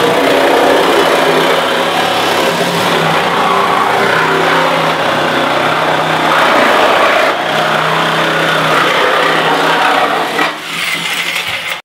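Reciprocating saw cutting through the steel body shell of a Mazda Miata, its motor running hard with the blade rasping in the metal; it eases off briefly near the end.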